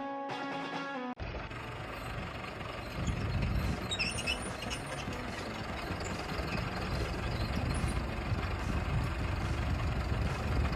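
A held musical chord cuts off about a second in. Then a vehicle engine runs steadily, with a few light clicks about four seconds in.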